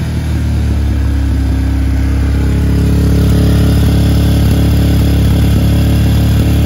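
Yamaha WR155R's single-cylinder engine held steadily at about 4,000 rpm, the low-rpm test, through an RSS full-system stainless-steel aftermarket exhaust, heard close to the silencer. It gets a little louder about two to three seconds in.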